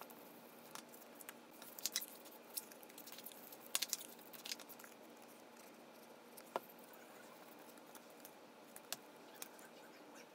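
Small cardstock pieces being handled and folded: soft paper rustles with scattered light clicks and taps, busiest about two and four seconds in, then only a few single clicks.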